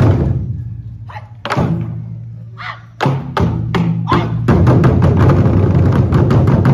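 Ensemble of Chinese barrel drums struck in unison: two single heavy hits about a second and a half apart, each ringing low as it fades, then four quicker hits, and a little past halfway a fast, continuous roll that stays loud.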